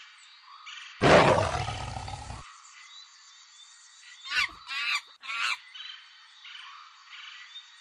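A loud animal roar sound effect of about a second and a half, then about two seconds later three short shrieking monkey calls that bend up and down in pitch, over a steady looped jungle background of repeating chirps.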